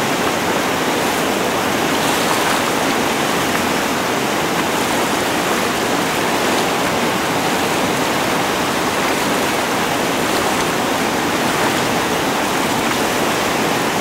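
Whitewater rapids rushing over a low waterfall between boulders: a loud, steady, unbroken rush of water.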